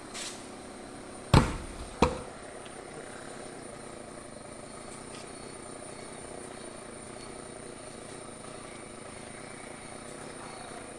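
Two loud, sharp knocks about half a second apart, a little over a second in, in a pause between chainsaw cuts. A faint steady background follows.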